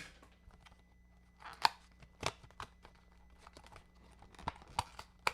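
Packaging of a charging cable being torn and opened by hand: a few short tearing and crinkling strokes with scattered clicks, the loudest about a second and a half and two seconds in, and a run of clicks near the end.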